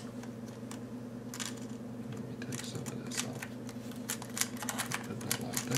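Light, irregular clicks and taps of a hard-cased iPhone being pressed and settled into the plastic tray of a PhoneSoap UV sanitizer, over a steady low hum.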